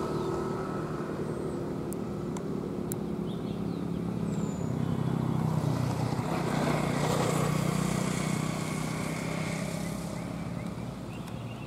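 Diesel engine of a red MSRTC state-transport bus running as the bus drives past. It grows louder about halfway through and fades near the end.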